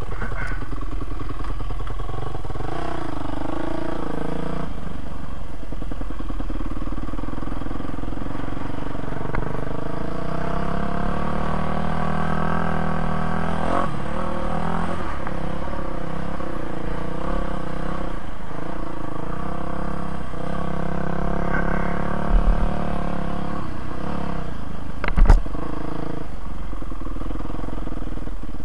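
Yamaha motocross bike's engine running under load while riding, its revs rising and falling with the throttle. Two sharp knocks come near the end, the second the loudest.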